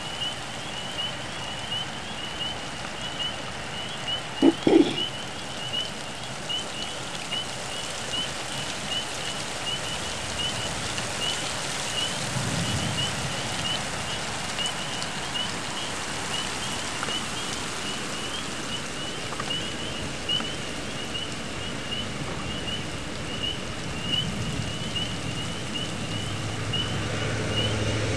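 Steady rain falling during a thunderstorm, with a high chirp repeating evenly throughout. A brief louder sound comes about four seconds in, and a faint low rumble about twelve seconds in.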